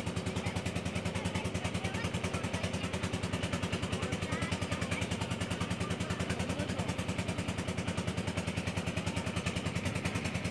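Boat engine running at a steady speed, with a fast, even chugging.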